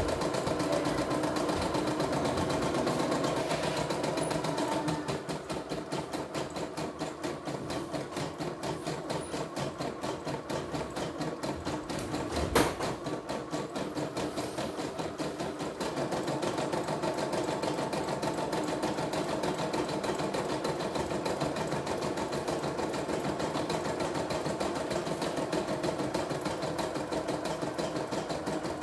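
CNY E960 computerized embroidery machine stitching a design, its needle running in a fast, even rattle. A single sharp click comes about halfway through.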